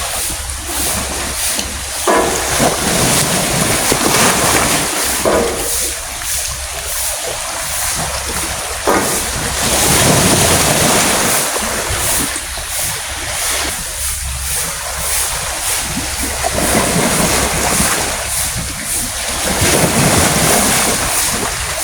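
Wind buffeting the microphone in gusts: a loud rushing noise with a low rumble that swells and eases.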